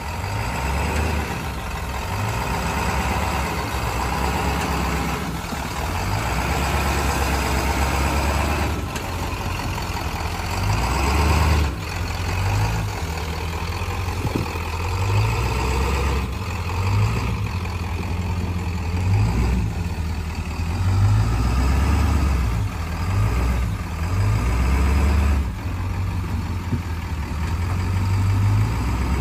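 A Ford Bronco's engine running at low speed while crawling over rocks off-road, the throttle swelling and easing every few seconds.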